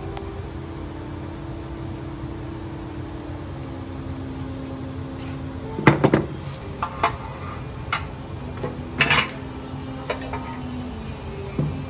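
Metal tools clanking against a Ford Model T cast-iron engine block and the bars clamped in its babbitt bearings, a string of sharp clinks and knocks starting about halfway through, over a steady low hum.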